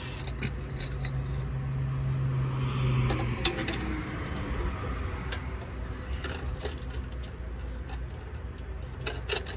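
A small motor hums steadily and winds down with a falling pitch about three and a half seconds in, followed by scattered light metallic clicks and rattles, with a cluster of louder clicks near the end.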